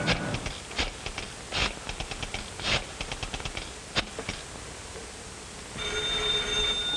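Candlestick telephone's rotary dial being dialled: groups of rapid, evenly spaced clicks. About six seconds in, a telephone bell starts ringing with a steady tone.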